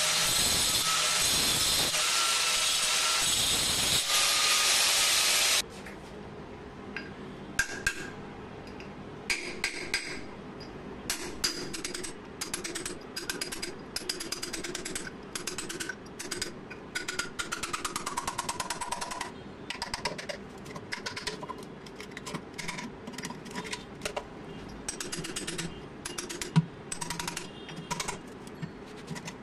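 Angle grinder with a cutting disc running steadily as it cuts along the edge of a floor drain grating, then cutting off suddenly about five seconds in. After that, a hammer repeatedly taps a chisel in short, irregular knocks, chipping the old grating loose from the tile floor.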